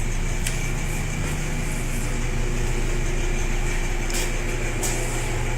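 Steady low mechanical hum with a constant drone, and a few faint ticks.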